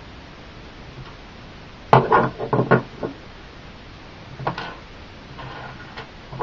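Hard plastic pieces of a 3D-printed Golden Gun replica clattering and knocking against each other and a wooden tabletop as they are handled and set down: a quick run of about five knocks around two seconds in, then a few lighter taps later on.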